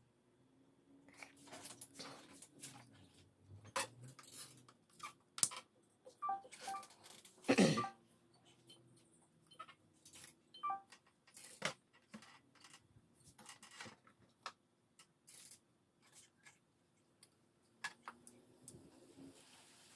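Irregular light clicks, taps and clinks of small hard parts being handled, with one louder clatter about seven and a half seconds in.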